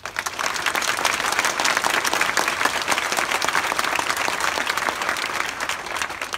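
A crowd of football supporters applauding: dense clapping that breaks out suddenly and dies down near the end.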